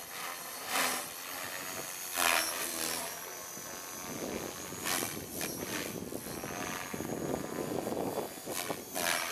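Electric RC helicopter (Align T-Rex 500 EFL Pro) in flight: a steady high whine from its motor and rotor, with several brief loud surges of rotor noise as it manoeuvres.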